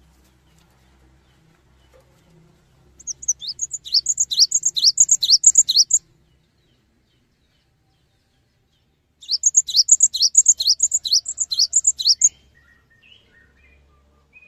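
Cinereous tit singing two bursts of rapid, repeated high notes, each falling in pitch, about four a second. Each burst lasts about three seconds, with a pause of about three seconds between them.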